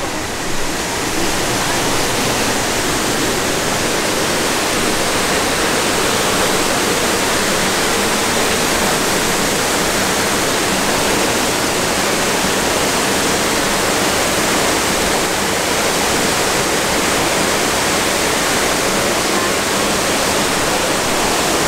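Waterfall pouring down over rocks: a steady rush of falling water that grows a little louder over the first second or two, then holds even.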